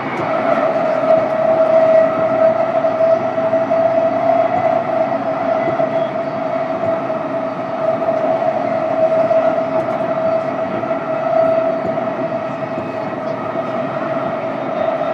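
Onboard running sound of a JR East E233 series electric train, heard from inside a motor car: a steady whine at one constant pitch over the continuous rumble of wheels on rail as the train runs at speed.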